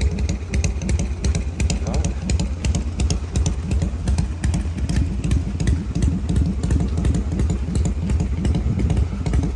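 A motorcycle engine running at a steady idle, a continuous quick train of low, uneven pulses.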